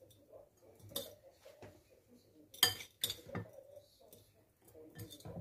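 Small metal spoon clinking and scraping against a ceramic bowl and into a green pepper while scooping and packing a minced-meat and rice filling. A few separate soft clinks, the loudest about two and a half seconds in, with another pair near the end.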